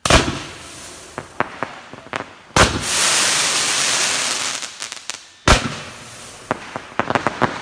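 Fireworks being set off: three sharp bangs, about two and a half to three seconds apart, each followed by a long hiss that fades away, with bursts of quick crackles in between.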